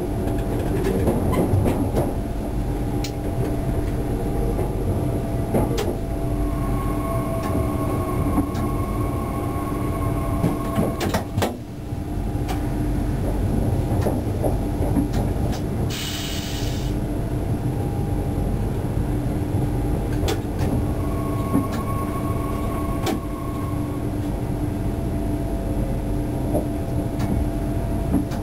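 Bombardier AGC multiple unit running, heard from inside its driver's cab: a steady low rumble with faint whining tones that come and go, and occasional clicks from the wheels over points. A short hiss of air a little past halfway.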